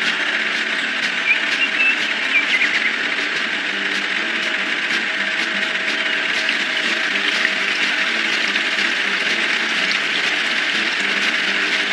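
Cartoon dump truck engine sound effect running steadily, a continuous noisy rumble with a faint ticking clatter.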